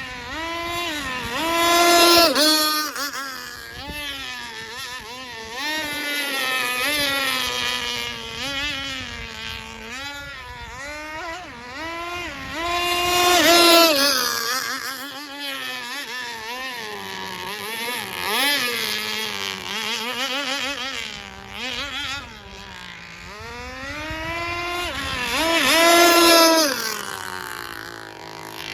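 Fuel-engined radio-controlled V-hull model boat running on the water, its engine note rising and falling as the throttle changes. It passes close and gets loudest three times, about twelve seconds apart.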